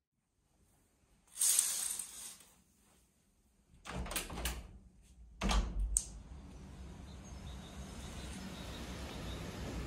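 A brief swish, then clicks and a low thump as a glass balcony door is unlatched and swung open. Steady outdoor background noise follows.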